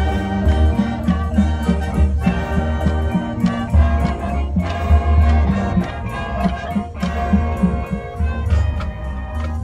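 Marching band playing its field show: sustained brass and wind chords over a steady pulse of drums and front-ensemble percussion.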